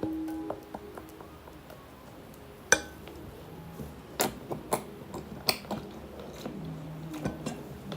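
Handling noises while making slime: a series of sharp clicks and taps, the loudest about three seconds in and several more in a cluster a little later, over faint background music.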